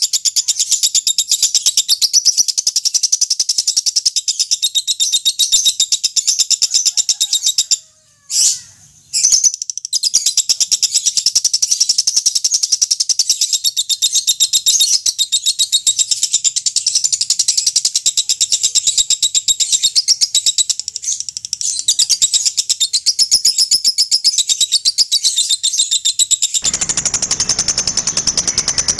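Lovebird calling in a long, very rapid, high-pitched chattering trill, the 'ngekek' call. The call breaks off briefly about eight seconds in. Near the end a rougher noise reaching down low joins the chatter.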